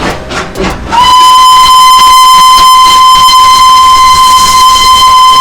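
Steam locomotive whistle of the Darjeeling Himalayan Railway toy train blowing one long, loud, steady blast starting about a second in, the departure signal as the train sets off.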